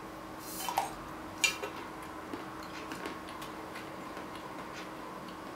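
Salted peanuts rattling out of a cup into a mouth, with a sharp click about a second and a half in, then scattered small crunching clicks as the peanuts are chewed.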